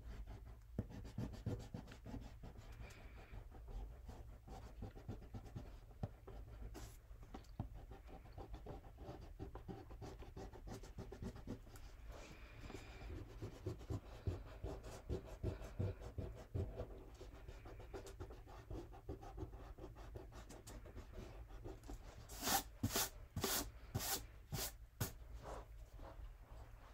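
Soft rubbing of an eraser on drawing paper, in many short back-and-forth strokes. About 22 seconds in come six or seven quicker, louder swishes as a hand brushes the eraser crumbs off the sheet.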